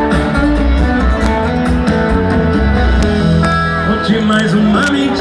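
Live sertanejo band music with guitar prominent over drums and bass, loud and steady.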